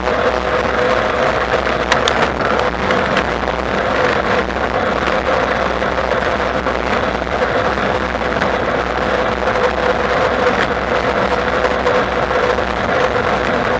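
Bafang BBSHD mid-drive e-bike motor whining steadily under way, over a steady rush of wind and tyre noise. A few light ticks about two seconds in.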